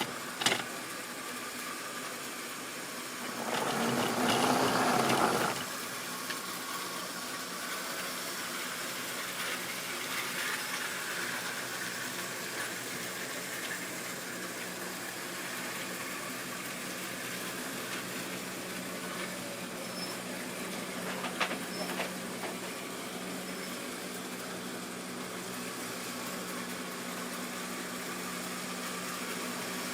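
Model railway train running on its track: a steady electric motor hum with wheel and rail noise, growing louder for about two seconds near the start, with a few sharp clicks from the wheels over rail joints.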